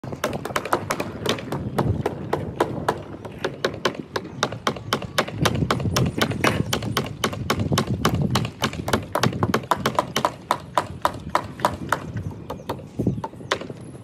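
Hand tool, likely a hammer, striking the timber edge formwork of a roof slab in rapid, repeated sharp knocks, about four to five a second, thinning out and getting quieter near the end.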